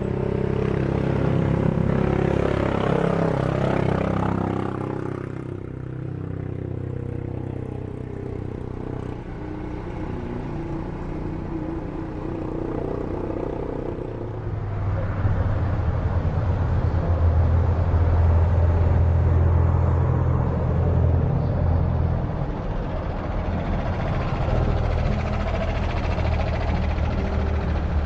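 Boeing 737 jet engines at takeoff power, a loud continuous rumble with a steady low drone. The sound changes abruptly about five seconds in and again about fourteen seconds in, and is loudest during the last takeoff.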